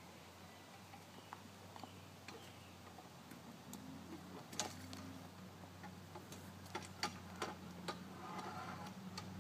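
Faint, irregular clicks and knocks from a wheeled pool-table slate dolly (OTLVISE) being handled and adjusted, with a few sharper ones in the second half, over a low steady hum.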